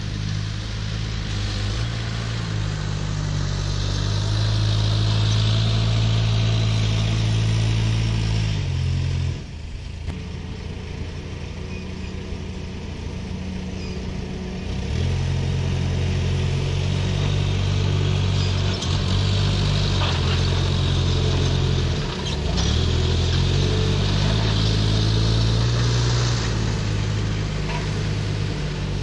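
A heavy vehicle engine working at raised revs, easing off to a low run about nine seconds in. It picks up again a few seconds later, dips briefly and revs back up.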